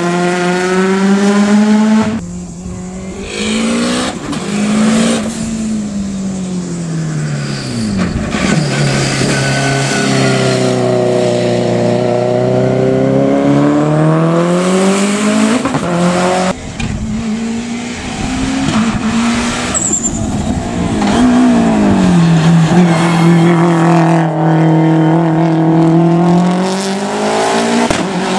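Hillclimb race car engine at high revs, its pitch falling and rising several times through gear changes and lifts, with brief dips in sound between.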